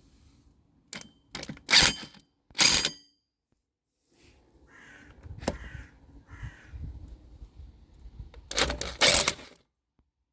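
Biltema 800 W impact wrench fired in short bursts of hammering, twice about two and three seconds in and again for about a second near the end, running a nut back on. Quieter handling clatter and a sharp click come between the bursts.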